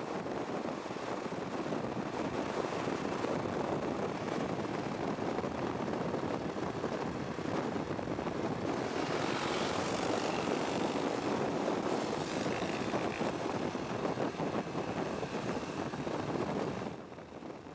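Enduro motorcycle riding at steady cruising speed on tarmac: the engine's drone mixed with wind rushing past the microphone. The noise drops in level just before the end.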